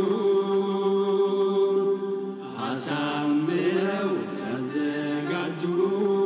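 A male voice singing a nasheed, an Islamic devotional song, in long held notes. Partway through, the pitch slides up and down before settling on a held note again.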